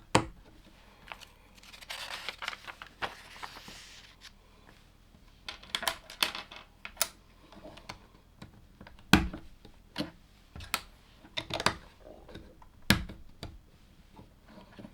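Plastic LEGO pieces clicking and clattering as they are handled and pressed together, in irregular taps of varying loudness, with a stretch of rustling about two to four seconds in.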